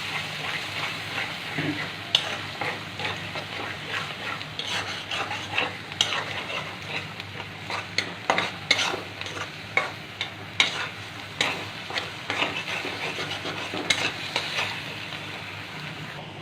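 Eggs frying and sizzling in hot oil in a kadai while a spatula stirs and breaks them up to scramble them, with frequent irregular scrapes and taps against the pan.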